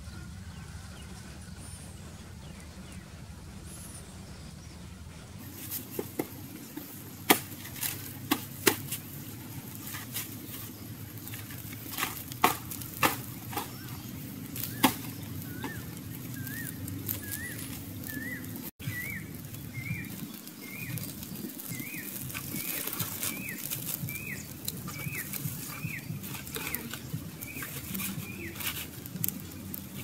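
Fire of dry leaves and twigs crackling with sparse sharp snaps over a steady rustle. From about halfway, a bird calls over it over and over, a short rising chirp roughly twice a second.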